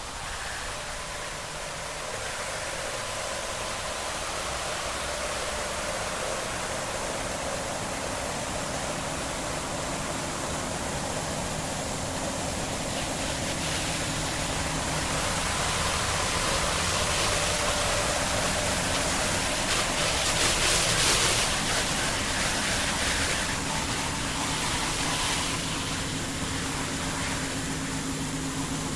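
Harsh noise drone music: a dense steady hiss with faint held tones beneath it, slowly swelling to its loudest about two-thirds of the way through, then easing back.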